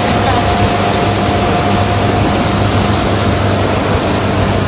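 Motorboat engine running steadily at speed: a constant hum under a loud, even rush of noise.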